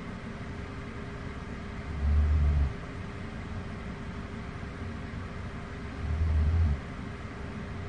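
A person snoring during sleep: a low snore of under a second, once about every four seconds with each breath, heard twice here.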